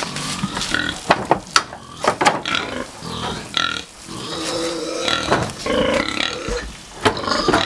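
Pigs grunting, with scattered short sharp knocks and clicks.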